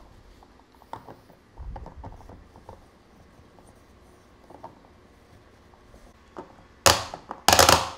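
Hands handling a plastic portable marine fuel tank, wiping the top with a paper towel and screwing the fill cap back on: a few light clicks and a low knock early, quiet rubbing, then two loud brief scuffs near the end.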